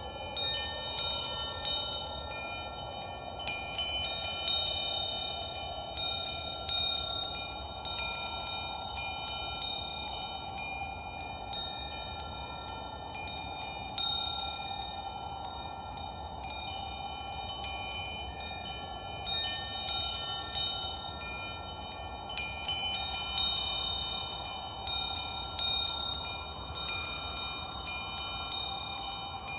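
Wind chimes ringing, struck at irregular moments by the breeze so that several clear high notes overlap and fade, over a steady soft hushing background.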